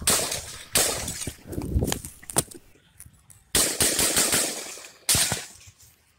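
Rifle gunshots from the rally shooter, recorded on a phone in the crowd near the shooter. About five loud, sharp shots come unevenly over six seconds, each trailing off in a long echo.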